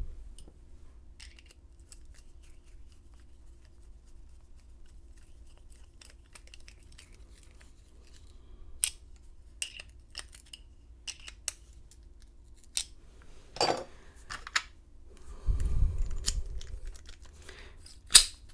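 Small metal clicks and scrapes of a Master Lock 930 padlock being put back together, its screw driven back in. The clicks are sparse at first and grow busier from about halfway, with a muffled rumble of handling near the end.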